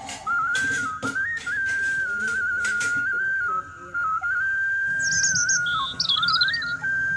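Whistled melody: one pure tone moving up and down in steps, with a few high bird-like chirps about five seconds in.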